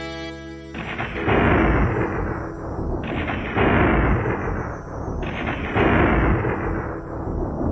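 Three explosion-like blasts about two and a half seconds apart, each a burst of noise that dies away over about two seconds with a thin falling tone running through it: a DJ blast sound effect laid into the music.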